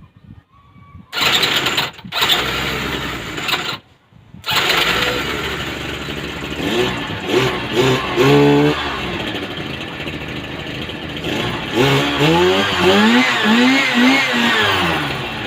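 Robin NBT415 twin-cylinder two-stroke engine starting up about a second in. It cuts out briefly near four seconds, then runs and is revved up and down several times.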